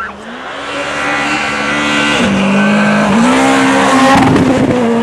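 Škoda Fabia rally car's engine running hard as the car approaches, growing steadily louder. Its pitch drops about two seconds in and picks up again a second later, as with a gear change, and near the end a rush of tyre and snow noise comes in as the car reaches its loudest.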